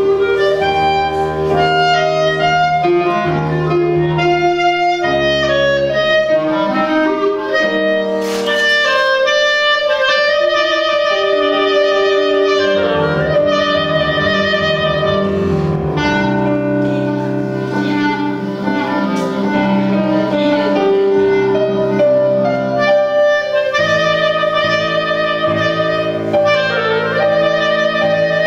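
Solo clarinet playing a melody of held and moving notes over piano accompaniment.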